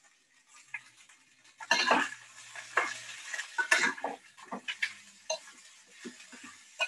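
Spatula scraping and clattering against a thin wok as vegetables are stir-fried. A run of quick strokes starts about two seconds in, and fainter scattered scrapes follow.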